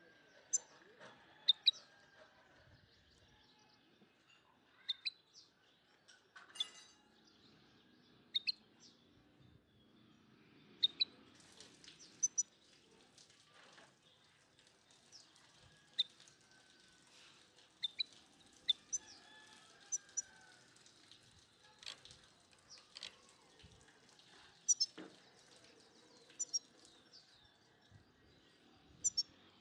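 Small birds chirping: short, high chirps, often two in quick succession, repeating every second or two.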